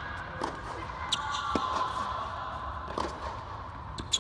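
Tennis ball being struck by rackets and bouncing on a hard court during a rally: sharp knocks spaced irregularly, about half a second to a second and a half apart, the loudest near the end.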